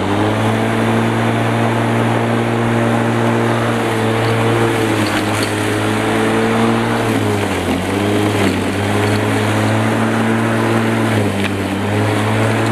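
Bosch Rotak 34R corded electric rotary mower, its 1300 W motor and steel blade running at full speed while cutting grass. Its steady pitch dips briefly twice, around eight and eleven seconds in, as the blade takes load in longer grass.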